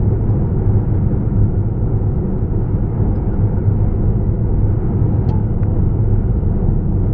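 Steady low rumble of engine and road noise from a vehicle driving at speed, heard from inside the vehicle, with one faint click about five seconds in.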